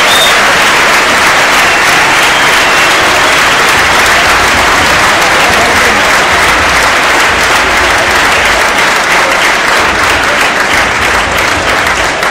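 Large stadium crowd applauding, a loud, dense wall of clapping; in the last few seconds it thins a little and single claps stand out.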